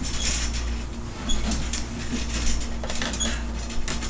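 Chrome hotel luggage cart rattling and clinking as a girl climbs onto its base and it is jostled, with irregular knocks and a couple of short metallic pings, over a steady low hum.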